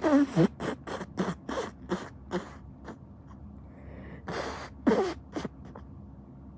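A person sick with a cold blowing a congested, snotty nose: a longer voiced blow at the start, then a quick run of short forceful blows about three a second, and two or three more blows a few seconds later.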